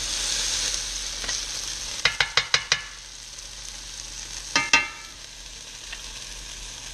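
Sea trout fillets sizzling in a cast iron skillet. The sizzle is strongest in the first couple of seconds and then quieter. About two seconds in there is a quick run of about five taps from the spatula against the pan, and a little past halfway there is one louder ringing clank.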